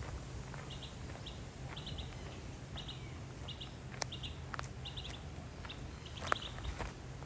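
A bird chirping in quick little bursts of two or three high notes, repeated over and over, with a few sharp clicks or steps and a steady low hum underneath.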